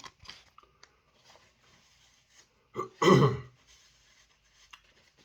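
A man clears his throat once, loudly, about three seconds in; the rest is faint small clicks.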